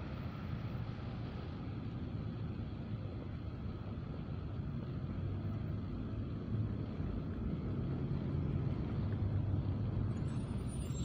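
ForCity Smart Artic X34 tram running past on snowy track with a steady low rumble that grows slightly louder as it comes close, and a faint high squeak near the end.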